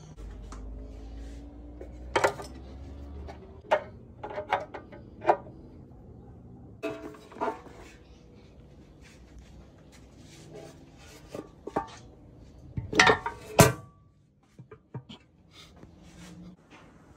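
Sharp metallic clanks and knocks of a pressed-steel automatic transmission oil pan and tools being handled on a workbench, a string of separate strikes with the loudest pair near the end.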